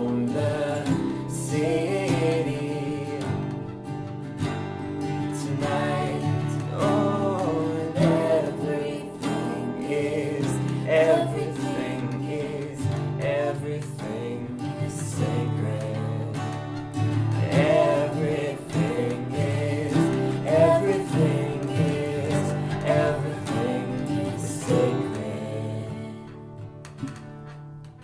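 Three acoustic guitars strummed together, with a woman and a man singing. Near the end the song dies away and the playing fades out.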